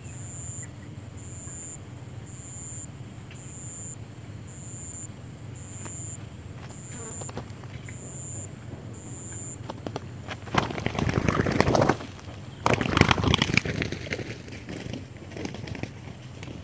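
An insect chirping outdoors, a single high-pitched note about once a second, which stops about ten seconds in. Then two loud rushes of noise, each a second or two long.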